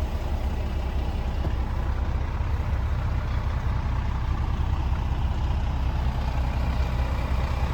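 Scania R410 truck's 13-litre six-cylinder diesel idling with a steady low rumble.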